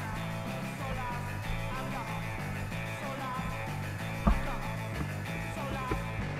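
Rock music with electric guitar over a steady repeating bass line, and one louder thump about four seconds in.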